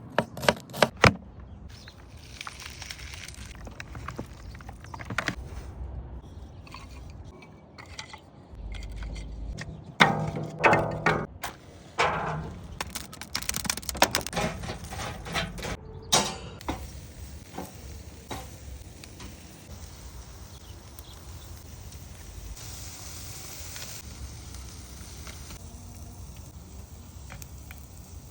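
Assorted knocks and clinks of objects being handled: several sharp hits near the start, a busier clatter about ten to sixteen seconds in, then a faint steady background.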